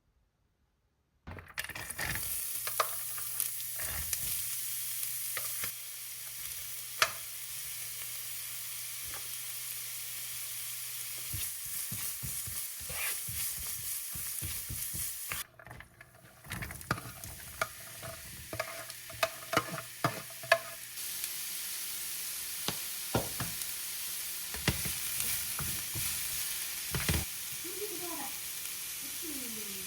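Food sizzling in a hot frying pan as it is stirred, with a steady hiss and scattered clicks and taps of a utensil against the pan.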